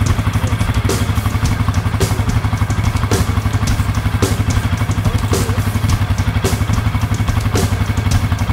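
ATV engine idling steadily close by, a pulsing low rumble, with a short sharp click about once a second.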